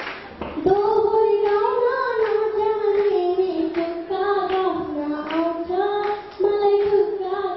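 A young girl singing into a handheld microphone, holding long sustained notes that glide between pitches, with a short breath break about six seconds in.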